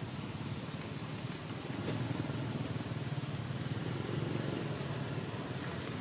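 Steady low outdoor rumble, a little louder in the middle, with a faint click and a couple of brief, faint high chirps early on.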